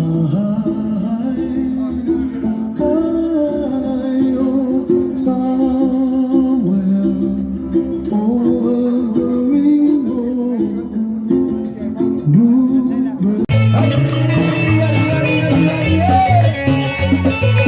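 Live band music with a plucked guitar carrying the melody; about thirteen and a half seconds in, the sound turns fuller and brighter as more of the band comes in.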